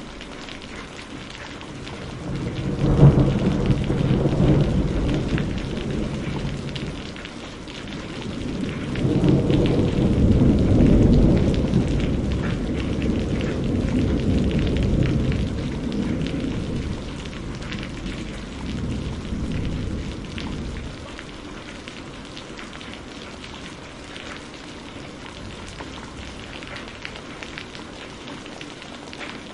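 Steady heavy rain with thunder: a sharp clap about three seconds in that rolls on, then a second long rumble from about nine seconds that dies away by about twenty seconds.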